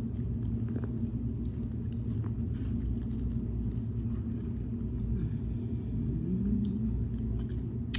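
Steady low rumble with faint chewing as someone eats corn on the cob, and a brief rising hum about six seconds in.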